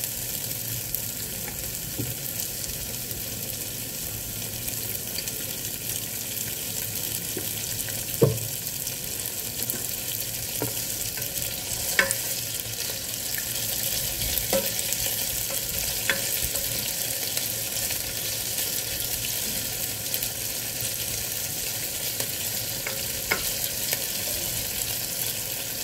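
Cubes of pressed tofu sizzling steadily as they fry in oil in a nonstick pot, with no spattering pops, because the tofu was pressed dry. A spatula stirs them, knocking sharply against the pan a few times, loudest about eight seconds in.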